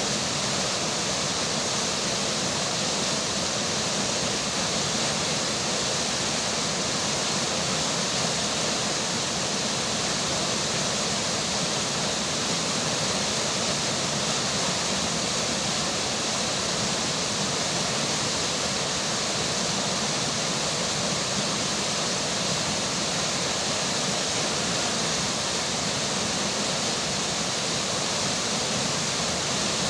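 River water and rainfall: a steady, even rush of flowing water with no breaks.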